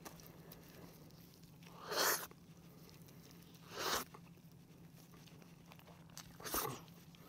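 Close-up eating sounds: cooked chicken meat pulled apart with vinyl-gloved hands and chewed. There are three short, noisy sounds about two seconds apart over a faint steady hum.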